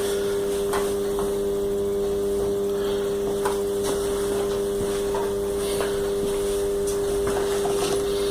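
A steady machine hum at one constant pitch, with a few faint ticks.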